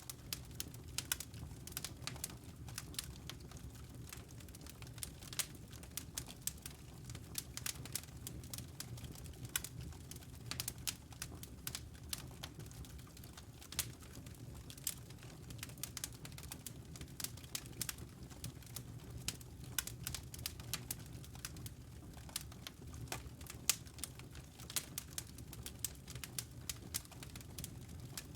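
Wood fire crackling in a fireplace: irregular sharp pops and snaps throughout, over a steady low background.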